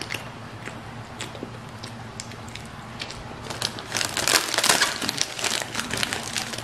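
Small wet mouth clicks from chewing marshmallow Peeps, then from about four seconds in, louder crinkling of the packs' clear plastic wrapper as hands dig out the next Peep.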